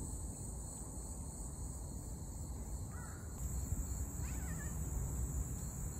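Outdoor mountain ambience: insects trill steadily at a high pitch over a low rumble of wind. Faint bird calls come about three and four seconds in.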